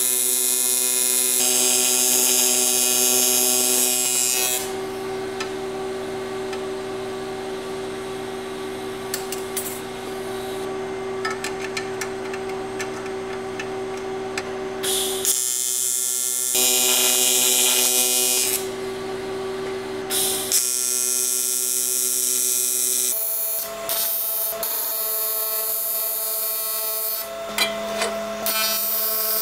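AC TIG welding arc on aluminum, a steady electric buzz with a hiss that starts and stops several times as the arc is struck and broken, with a few sharp clicks near the end.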